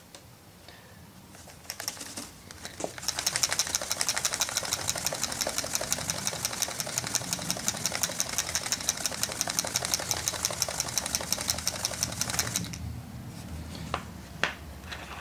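Plastic drinks bottle holding loose flock fibres, shaken hard by hand to build up a static charge on the flock. It makes a fast, even rattle that starts a few seconds in, lasts about ten seconds and stops abruptly. A couple of sharp clicks follow near the end.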